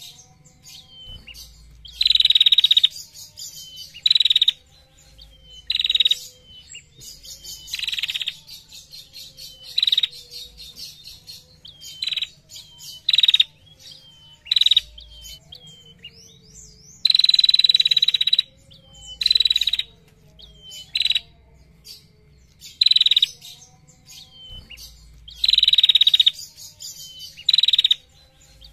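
Female prenjak calling: loud, fast, high-pitched rattling trills of up to about a second, repeated every couple of seconds, with short thin notes in between. This is the long 'ngetir' trill that bird keepers use as a training call.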